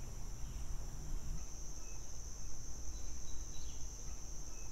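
A steady, high-pitched chorus of insects in summer, with a low rumble underneath.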